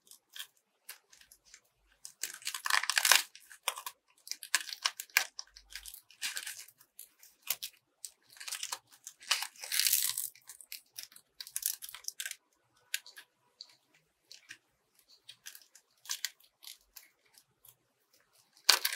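Foam fruit-protector netting crinkling and rustling in short irregular bursts as thin wire is wound and twisted around it to bind a flower. The bursts thin out to scattered faint clicks in the last few seconds.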